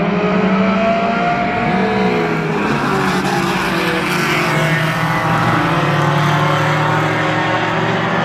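Several mini stock race cars' engines running together on the oval, their pitches rising and falling as they go through the turns and down the straight. About three to four seconds in, a pair of cars passes close by and is louder for a moment.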